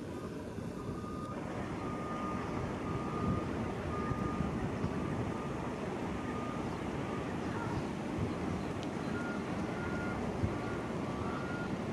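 Backup alarm of construction equipment beeping at an even pace over steady outdoor vehicle and traffic noise, starting about a second in. Near the end a second, higher-pitched beeper sounds alongside it.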